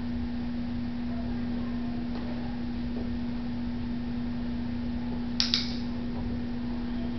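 A steady electrical hum on one low pitch, with a sharp double click near the end.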